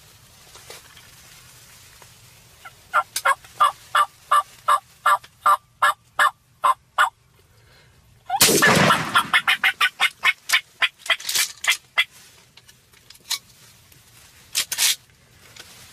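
Wild turkey yelping, a run of about a dozen quick calls at an even pace. Then a single shotgun blast about eight seconds in, followed by a rapid string of flaps and thumps as the shot jake flops in the corn stubble.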